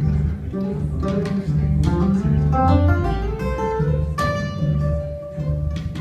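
Instrumental break of a song from a plucked upright double bass and a guitar. A rising run of notes comes about halfway through, then a note is held near the end.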